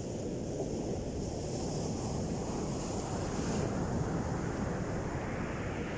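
Heavy, rough ocean surf breaking and washing in as a steady rushing roar, with wind on the microphone.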